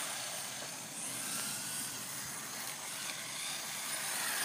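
Redcat Lightning EPX Pro radio-controlled car driving at speed: its electric motor whines, rising and falling in pitch, over a steady hiss of tyres on pavement.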